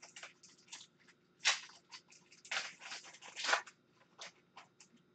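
Plastic wrapper of a hockey card pack being torn open and crinkled as the cards are pulled out: a run of crackling rustles, loudest about a second and a half in and again around three seconds in.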